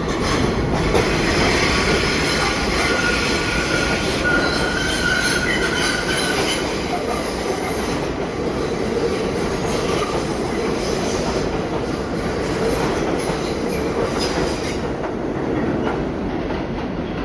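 New York City subway train on the IRT Lexington Avenue Line running at speed with a steady rumble and wheel clicks over the rail joints. Its wheels squeal in a high, steady tone for a few seconds, from about three to six seconds in.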